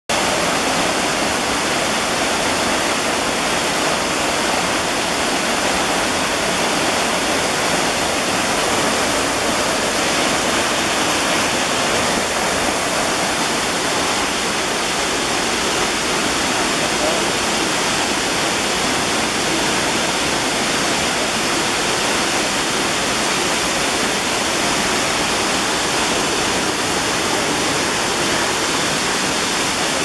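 A tall waterfall plunging down a rock face, making a steady, loud rushing roar of falling water.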